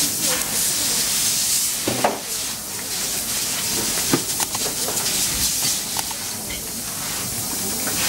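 Steady hiss of room noise, with a few short clicks, the sharpest about two seconds in and again about four seconds in, as fibre-optic connectors are plugged into the port of an optical test instrument.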